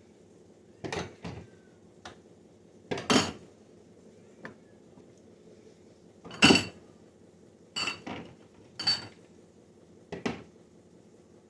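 Sauce bottles and jars clinking and knocking together as they are taken out and set down, in a string of sharp, separate clatters. The loudest comes about six and a half seconds in. A faint steady hum runs underneath.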